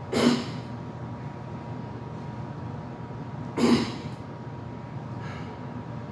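A man's two sharp, forceful exhalations about three and a half seconds apart, one breath per rep of heavy barbell split squats, with two fainter breaths later on. A steady low hum runs underneath.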